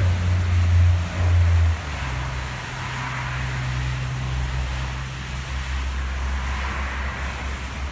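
Oasis Typhoon touchless car wash running: water jets hissing onto a car under a steady low machinery hum. The hum drops in level and shifts note about two seconds in.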